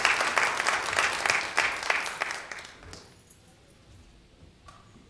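Congregation applauding, the clapping dying away about three seconds in, then a quiet room with a few faint knocks.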